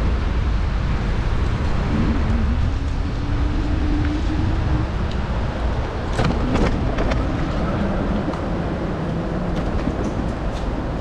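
Steady wind rumble on the microphone of a bicycle in motion, with a faint low hum a couple of seconds in and a short run of sharp clicks about six seconds in.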